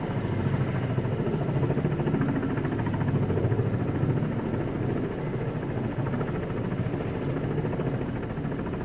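Kamov Ka-32A11BC coaxial-rotor helicopter running close by: a steady, rapid beat of rotor blades over the whine of its twin turboshaft engines. The sound eases slightly about five seconds in.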